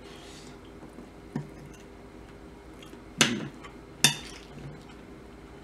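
Metal fork clinking against a dish while eating: a faint tap, then two sharp clinks about a second apart past the middle.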